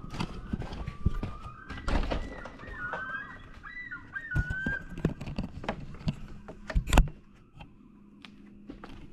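Common loon calling: a long rising wail, then wavering, warbling notes that fade out about five seconds in. Over it come repeated knocks and thumps, the loudest about seven seconds in.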